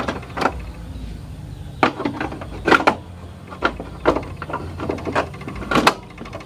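A cassette being loaded into a Sony cassette boombox and its keys pressed: a string of sharp plastic clicks and clunks, a dozen or so spread unevenly through the few seconds.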